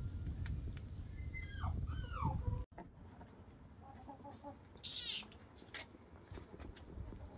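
Domestic animal calls: a few short, curving pitched calls over a low rumble, then after an abrupt cut about two and a half seconds in, quieter chirps with a quick high trill about five seconds in.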